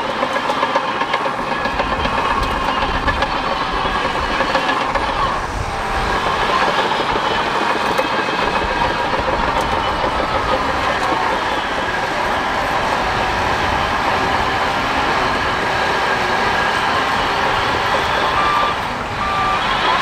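Bulldozer's diesel engine running hard with its steel tracks clattering. Near the end, a reversing alarm beeps a few times.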